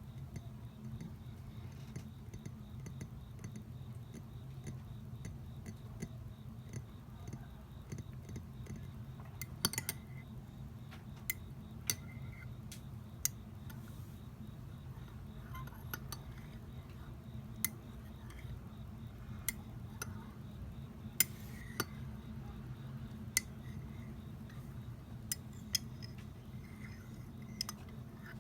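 A metal spoon clinks against glass while scooping homemade grapefruit cheong: about a dozen sharp, irregular clinks, a second or two apart, over a steady low hum.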